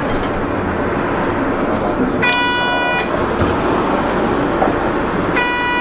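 Kyoto City Bus running, with engine and road noise heard inside the cabin. Two short, steady pitched tones sound over it, each under a second long and about three seconds apart.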